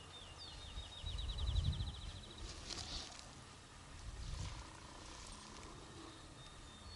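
A small songbird sings a few quick falling whistles, then a rapid trill of evenly spaced high notes lasting about two seconds. Low rumbling noise comes and goes beneath it, loudest about a second and a half in and again near four and a half seconds.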